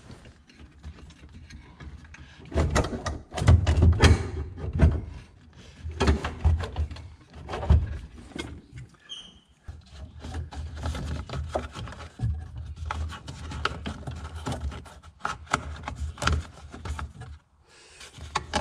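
Irregular clicks, knocks and rustling of hand tools being worked on a bolt holding a car's heater assembly under the dashboard, with dull low thumps in between.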